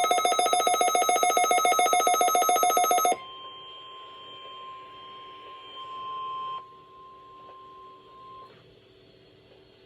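Loud electronic alarm tone pulsing rapidly at one fixed pitch, cutting off suddenly about three seconds in. A much fainter steady tone follows for about five seconds.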